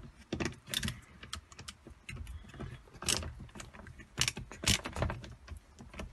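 Irregular clicks, taps and clunks of hands working on the plastic housing, connectors and metal parts of a BMW i3 high-voltage battery safety box as it is taken apart.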